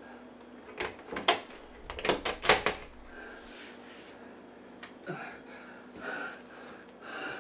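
A handful of knocks and clatters in a small room, clustered in the first three seconds, then a brief rush of hiss and faint breathy sounds.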